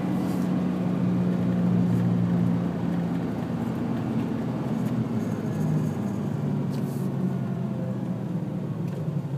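Car driving along at road speed, heard from inside the cabin: a steady low engine hum over tyre and road noise, its pitch shifting slightly about halfway through.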